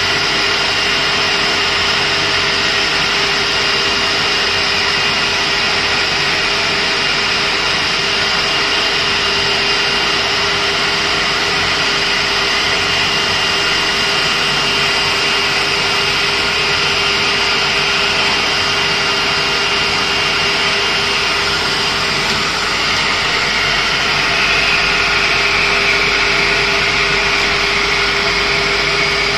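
IECHO digital knife cutting machine running as it cuts a clear plastic sheet: a steady mechanical hum and whine with a few held high tones. A higher whine gets a little louder about three quarters of the way in.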